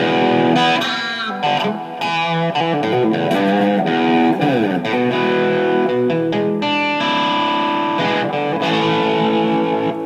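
Electric guitar played through effects pedals into an amplifier, notes and chords with a note sliding down in pitch about halfway through.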